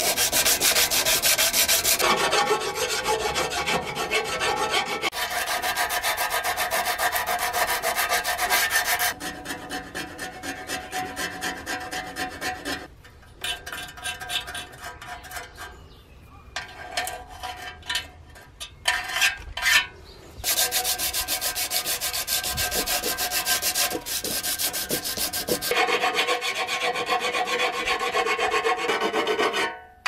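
Sheet-metal control panel parts of an old Yanmar dozer shovel being sanded by hand with an abrasive pad, in fast back-and-forth rubbing strokes. Near the middle there is a quieter stretch of slower, separate strokes.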